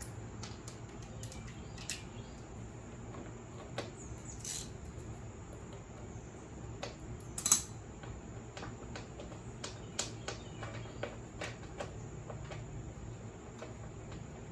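Scattered light clicks and clinks of hand tools and metal mower parts being handled during a deck belt change, the loudest about seven and a half seconds in, over a steady low hum.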